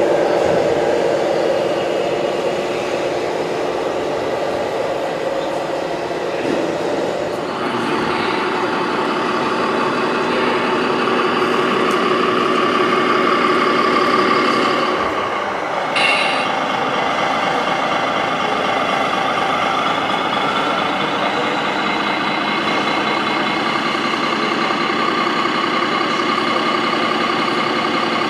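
Model truck sound module playing a simulated heavy diesel engine through a small speaker. It runs steadily and shifts in pitch twice, about a quarter of the way in and again about halfway.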